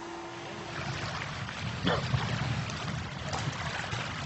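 Wind and small waves washing on a shingle beach, a rushing outdoor noise with a low rumble, starting about a second in.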